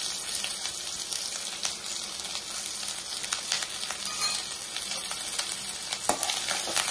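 Grated coconut, shallots and dried red chillies sizzling in hot oil in a metal kadai: a steady hiss with scattered light crackles. About six seconds in, a metal ladle knocks against the pan as stirring begins.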